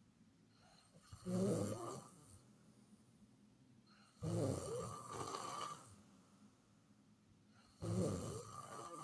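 A sleeping person snoring: three loud snores, each lasting one to two seconds, about three and a half seconds apart, with quiet breathing gaps between them.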